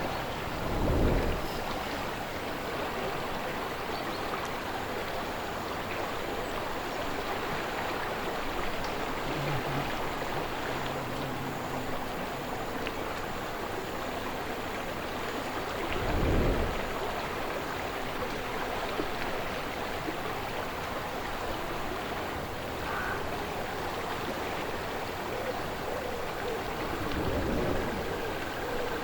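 Slow-moving river flowing steadily, a continuous rush of water. Three brief low gusts of wind swell up about a second in, around the middle, and near the end.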